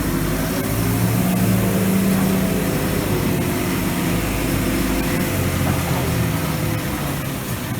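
Diesel engine of a John Deere T670i combine harvester running steadily under load, its pitch shifting slightly now and then.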